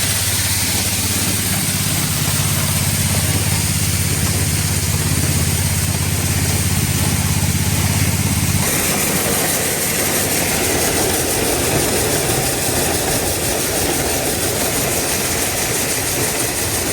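Grain-handling machinery running steadily as a wagon of shelled corn unloads. About eight and a half seconds in, the low hum drops away and a coarser rushing noise carries on.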